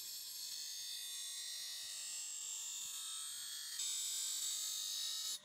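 A power tool working a steel knife blade: a steady high-pitched hiss that steps louder about four seconds in and cuts off abruptly at the end.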